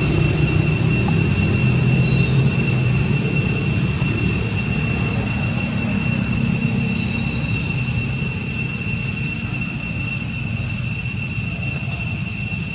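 Steady low rumble with a continuous, even high-pitched drone above it.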